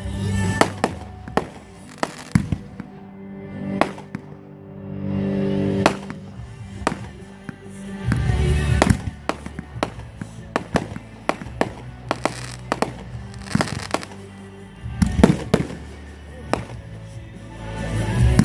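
Fireworks bursting and crackling: a rapid, irregular string of sharp bangs, loudest in clusters near the end. Music with long held notes plays underneath.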